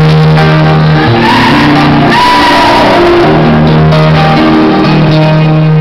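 A group of voices singing together in harmony, holding long chords that change every second or so, recorded very loud.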